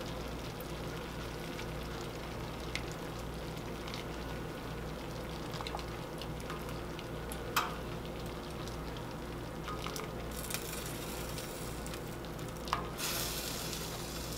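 Spaghetti sizzling in garlic olive oil and pasta water in a cast iron skillet, a steady hiss, with a few sharp clicks of the tongs. The hissing swells briefly about ten seconds in and again near the end as more wet pasta goes into the pan.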